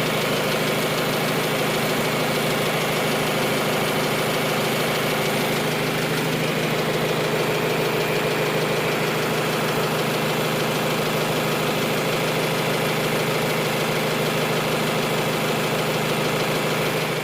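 John Deere 410 loader backhoe's engine idling steadily with an even, unchanging note.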